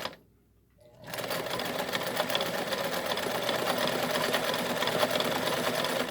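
Kenmore 1750 sewing machine running, sewing a cam-driven fancy zigzag stitch. It stops briefly at the start, starts again about a second in, and then runs steadily.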